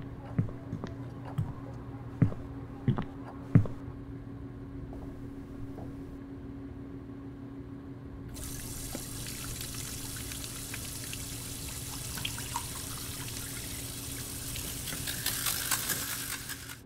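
A kitchen faucet running, water pouring steadily into the sink, starting suddenly about halfway through. Before it there is a steady low hum with a few footsteps on a hard floor, about one every three-quarters of a second.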